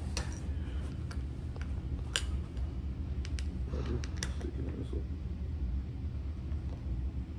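Scattered sharp clicks and light metallic taps of a hand tool tightening bolts on a couch's brace, over a steady low hum.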